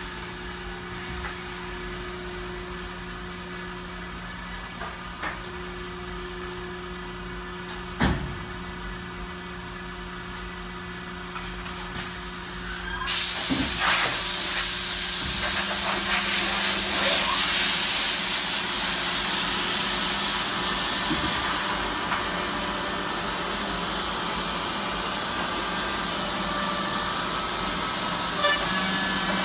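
Vector Revolution 180 CNC contour edgebander running with a steady low hum. About halfway through, a loud steady rush of air starts suddenly and holds, and a thin high whine joins it soon after.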